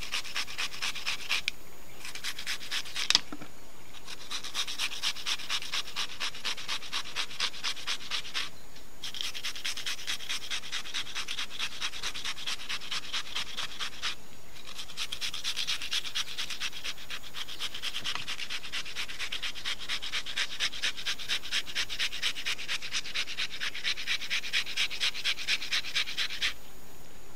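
Cucumber being rubbed over a hand grater in quick, regular rasping strokes, with a few short pauses and a single knock a few seconds in.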